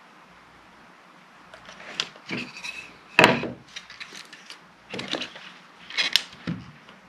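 Wooden face-frame parts knocking and clattering as they are handled and set down on the workbench: a string of irregular sharp knocks starting about a second and a half in, the loudest about three seconds in.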